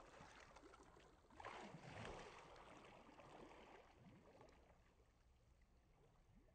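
Faint swimming-pool water splashing and lapping, with a louder splash about a second and a half in, then fading away.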